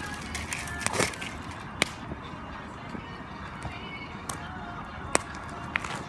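Bamboo burning in an open fire: a steady crackle with a few sharp, loud pops and cracks, four standing out.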